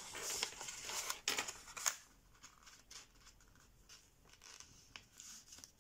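A sheet of 80 g/m² printer paper rustling and crinkling as an origami flap is lifted, opened and pressed flat. The crisp rustling is strongest for about the first two seconds, then fades to faint scattered rustles and small ticks.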